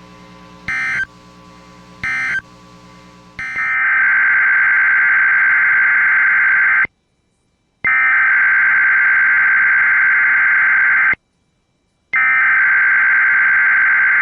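A low radio hum with two brief bursts, then a NOAA Weather Radio SAME digital header. It is a harsh buzzing data screech sent three times, each about three seconds long with a second's silence between. The header encodes the alert, here a tornado watch, and the areas it covers, so that alert receivers switch on.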